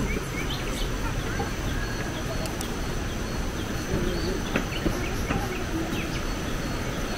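Birds chirping in the forest: short, repeated high calls, a quick run of rising notes at the start and scattered chirps after, over a steady low rumble.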